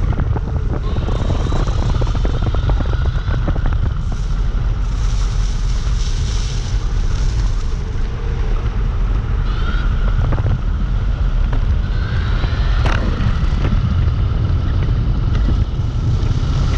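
Wind buffeting the microphone while a Dualtron Compact electric scooter is ridden in the rain, with tyre and road noise and a faint steady whine from the motor.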